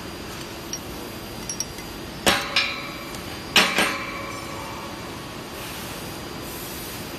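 A few light metallic clinks, then two pairs of sharp hammer blows on steel, each pair a fraction of a second apart, each blow leaving a short metallic ring. A low steady hum runs underneath.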